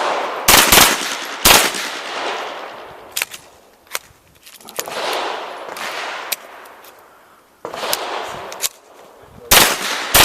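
Pistol shots fired at irregular intervals, a few in quick succession about half a second in and then more spaced out, each crack trailing off in a long echo.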